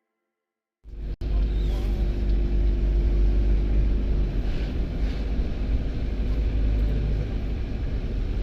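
Vehicle travel noise, a steady rumble of road and engine with heavy low buffeting, cutting in suddenly about a second in after a silent gap and dropping out for an instant just after.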